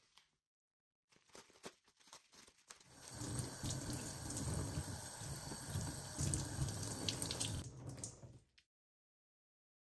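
Liquid pouring and splashing steadily for about five seconds, after a few faint clicks.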